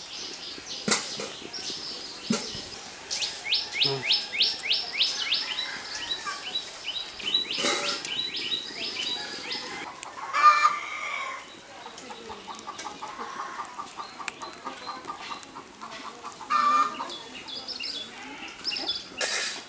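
Chickens clucking, with a fast run of clucks about two-thirds of the way through, over small birds chirping in quick series of high notes. A few short knocks.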